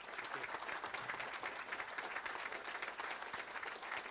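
A roomful of people applauding: many hands clapping together in a dense, steady stream.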